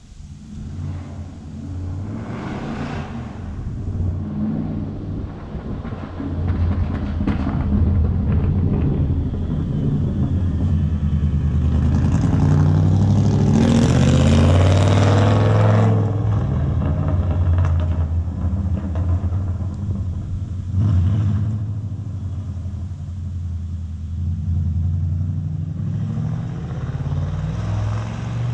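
Rally car's engine running loud with a deep rumble, its pitch stepping up and down with the throttle; it swells to its loudest about halfway through, then rumbles on more quietly.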